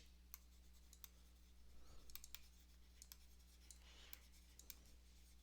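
Near silence: a few faint, scattered clicks and light scratching, as of writing or clicking at a desk, over a low steady electrical hum.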